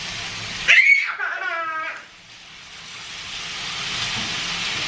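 Soy-honey glazed chicken sizzling in a hot grill pan, the sizzle growing louder over the last few seconds. A short high-pitched cry sounds about a second in.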